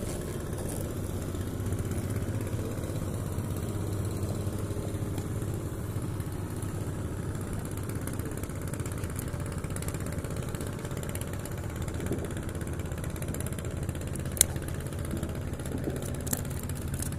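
An engine running steadily at idle with a low, even drone, and one sharp click about fourteen seconds in.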